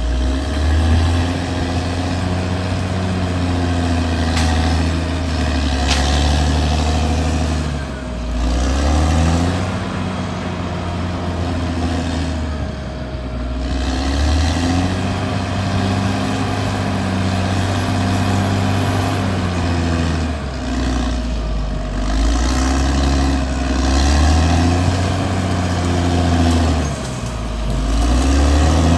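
Caterpillar D6R XL bulldozer's diesel engine running under working load, its pitch sagging and picking up again every few seconds as it pushes, with a steady whine over it and a few sharp clanks.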